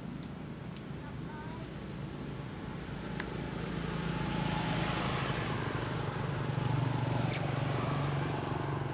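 A motor vehicle's engine hum going by, growing louder through the middle and loudest about seven seconds in, with a few sharp clicks scattered through it.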